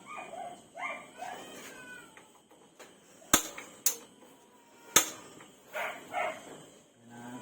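A cat meowing a few times, with three sharp knocks or clicks about halfway through.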